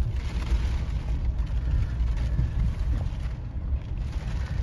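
Low, steady rumble of a Jeep driving along a wet street, heard from inside the cabin.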